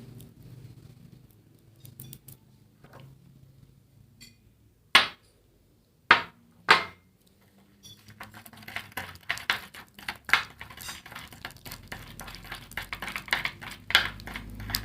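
A spoon stirring a sticky slime mixture and knocking and scraping against its container. Three sharp knocks come about five to seven seconds in, then from about eight seconds on a rapid, continuous run of clinks and scrapes.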